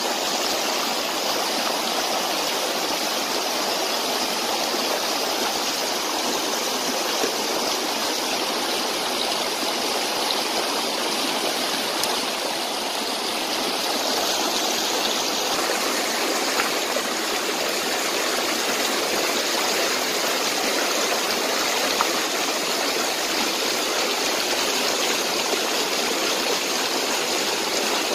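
Shallow rocky stream rushing steadily over stones in small white-water cascades.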